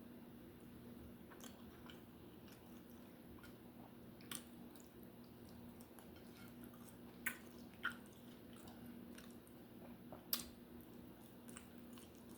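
A person chewing and biting food quietly, with a few sharp crisp clicks about four, seven to eight, and ten seconds in, over a faint steady hum.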